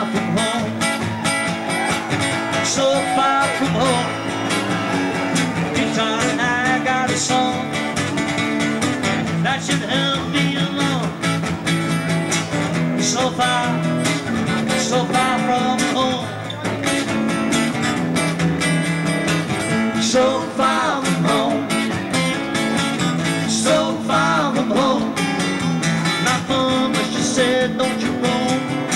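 Acoustic guitars strummed live through the stage PA, playing a folk song with no break.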